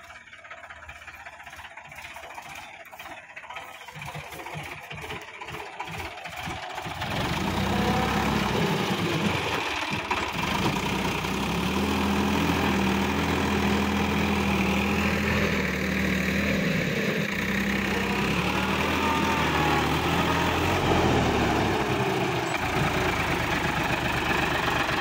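Sonalika Supreme DI-50 RX tractor's diesel engine running with a steady knocking beat, at first fainter, then loud and close from about seven seconds in, as the tractor works at pulling a fully loaded trolley.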